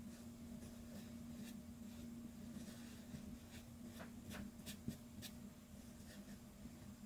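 Art marker tip stroking across paper, a faint scratchy sound of short strokes that come quicker around four to five seconds in, over a steady low hum.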